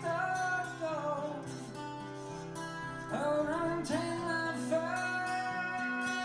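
Recorded song played through Dynaco A25 loudspeakers driven by an Arcam A80 amplifier: guitar over steady bass notes, with a sustained melody line that slides and bends in pitch, rising sharply about three seconds in.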